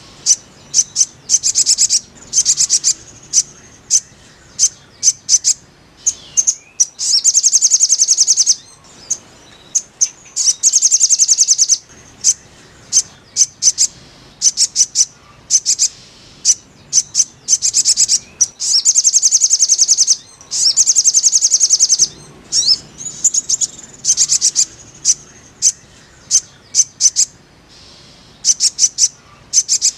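Little spiderhunter (sogok ontong) calling: fast trains of high, sharp chip notes, some runs over a second long, others brief, repeated with short gaps.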